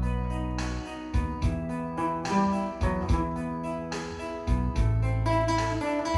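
Acoustic guitar strummed in a steady rhythm over sustained bass notes and a light keyboard backing: an instrumental passage with no singing.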